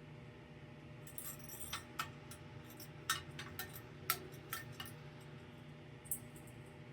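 Scattered light metallic and glassy clicks and clinks, from about a second in to about six seconds, as the ceiling fan is handled to switch it back out of reverse, over a low steady hum.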